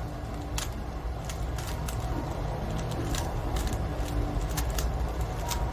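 Rubik's cube being handled and turned: a string of short, irregular plastic clicks over a steady low rumble.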